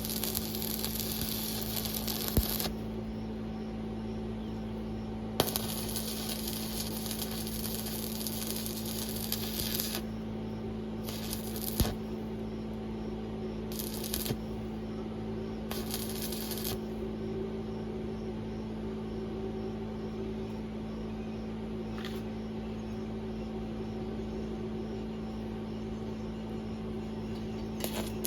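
Arc welding: the arc crackles and hisses in bursts of a few seconds each, five times, stopping and starting between welds over a steady hum. A few sharp clicks are loudest.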